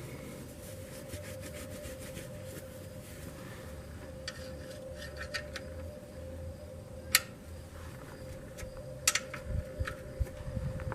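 Scattered clicks and knocks of tools and parts being handled under a car during an oil change, sharpest about seven seconds in and again around nine to ten seconds, over a steady low hum.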